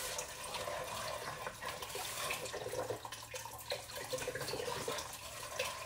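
Chicken broth pouring in a steady stream from a carton into a pot of cooking ingredients.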